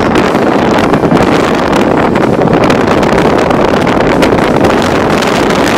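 Storm-force wind blowing hard across the microphone: a loud, steady rush of wind noise.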